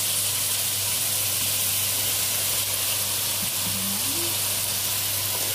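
Sliced eggplant sizzling in hot oil in a wok with sautéed garlic and onion: a steady hiss, with a low steady hum underneath.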